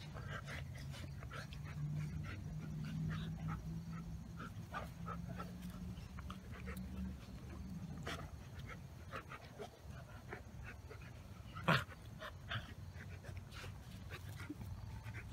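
Alaskan Malamute and German Shepherd puppy play-fighting: a low, steady play growl for about the first half, then short yips, snuffles and snaps of the jaws. One loud sharp sound about three-quarters through is the loudest event.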